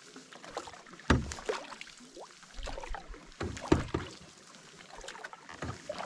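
Canoe being paddled: paddle strokes dipping and splashing in the water, with sharp knocks at irregular intervals, the loudest about a second in and just before four seconds.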